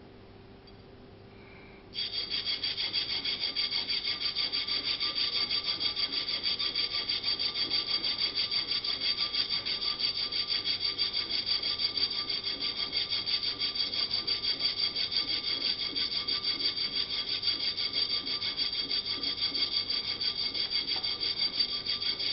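Steel A2 birdcage flash hider rasped back and forth against a flat steel hand file in quick strokes, several a second, with a high metallic ring. It starts about two seconds in and stops sharply at the end. The file is taking metal off the hider's seat so its ports line up when torqued on.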